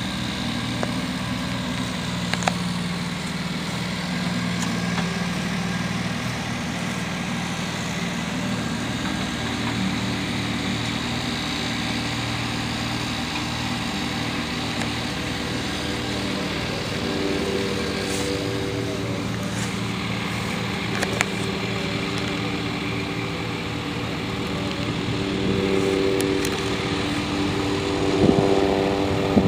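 A small engine running steadily, with a higher engine note coming in past the middle and growing louder near the end.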